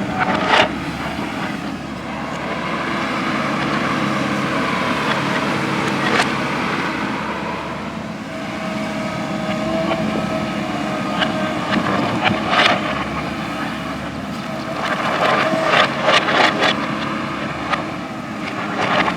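JCB backhoe loader's diesel engine running steadily under load, with occasional sharp knocks and scrapes, several in quick succession near the end.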